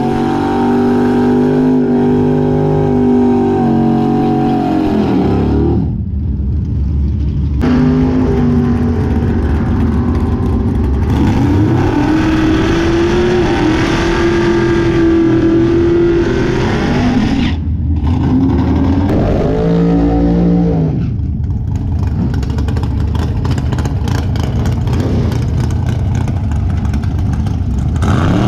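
Drag-race cars doing burnouts one after another, engines held at high revs with the rear tyres spinning. The revs drop away about six seconds in and come back up, rise again near eleven seconds, and there is a short blip of revving around twenty seconds in.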